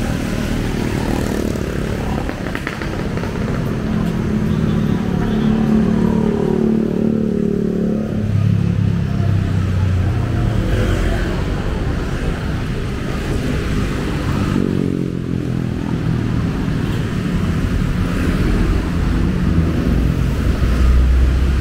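City street traffic, mostly motorcycles and cars passing close by. Their engine notes slide in pitch as each one goes by.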